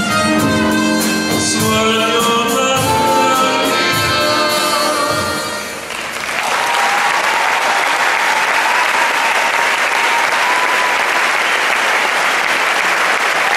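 A slow rumba song with a singer and a steady beat fades out about six seconds in, and the audience breaks into sustained applause.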